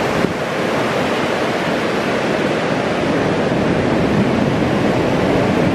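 Ocean surf washing in as a steady, continuous rush of noise.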